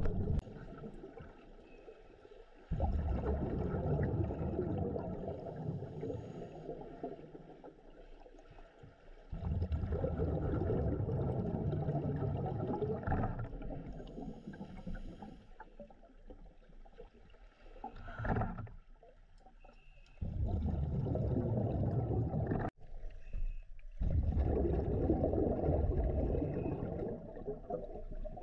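Scuba diver's exhaled bubbles from the regulator, heard underwater: several rushing, gurgling bursts a few seconds long, with quieter breaks between them as the diver breathes in.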